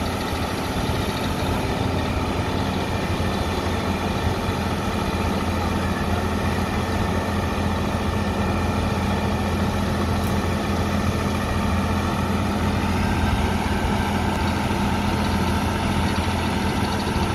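Diesel engine of a Fuso boom truck running steadily as its crane hoists a steel truss arch.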